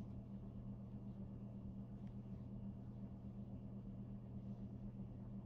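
Hardinge metal lathe running, a steady low hum.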